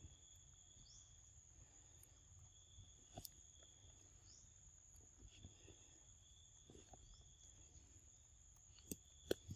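Faint, steady high-pitched drone of insects in two thin tones, with a few sharp clicks, the loudest a little before the end.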